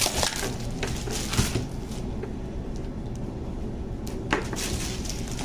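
A few scattered clicks and knocks from objects being handled, the sharpest about four seconds in, over a low steady background hum.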